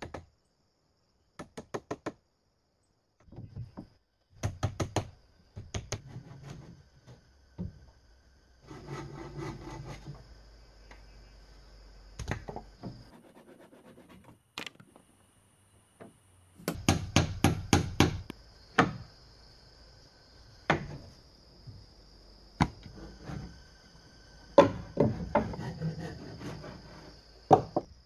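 Hammer driving nails into wooden boards and roof framing, in runs of quick sharp strikes with pauses and some scraping of wood between them. A steady high insect buzz runs underneath.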